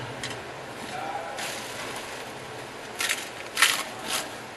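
Hands crumbling crisp fried papdi over small steel bowls: a few short dry crunches about three to four seconds in, against faint background chatter.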